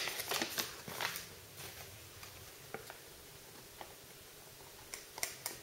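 Paper leaflet and thin card packaging handled: rustling and light clicks, busiest in the first second, then a few scattered taps, with another small run of clicks near the end.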